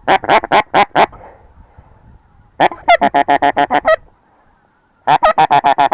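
Goose call blown in three runs of short, rapid honks, about seven a second, to draw geese back in over the decoy spot.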